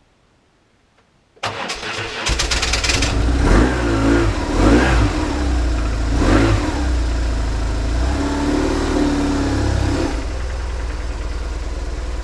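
BMW R1150GS boxer twin cranked on its electric starter, catching after about a second, revved up and down three or four times, then settling into a steady idle. This is the first start after a full reassembly.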